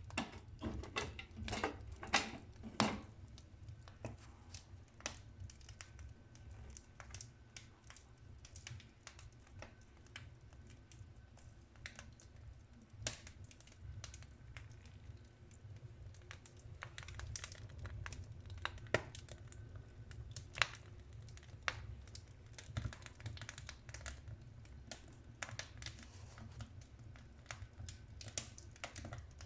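Wood fire crackling in a fireplace: irregular sharp pops and snaps from the burning logs, busiest in the first few seconds, over a steady low rumble.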